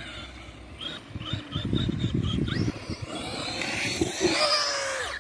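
Traxxas X-Maxx 8S RC monster truck's brushless electric motor and drivetrain whining, the pitch rising and falling in short bursts as the throttle is worked, over a low rumble.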